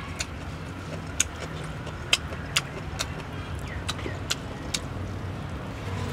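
Scattered sharp clicks and crackles from a lettuce wrap of fish meatball being put together by hand, about nine in all, over a steady low hum.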